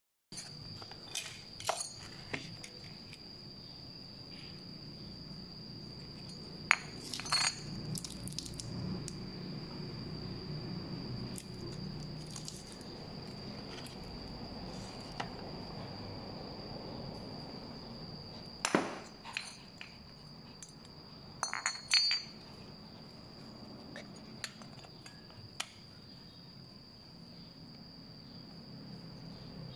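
Metal parts of an angle grinder clinking and knocking against each other and the stone countertop as its gear-head housing is unscrewed and taken off, in scattered clinks, several of them in quick clusters. A steady high thin whine runs behind.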